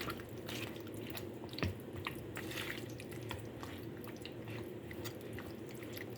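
Hands mixing raw chicken pieces with a yogurt and spice marinade in a bowl: soft, irregular wet squelches and small clicks.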